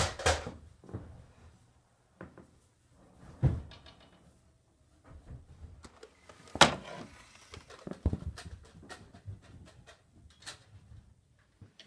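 Scattered knocks and thuds around a wooden interior door, with rustles of movement between them; the loudest thuds come about three and a half and six and a half seconds in.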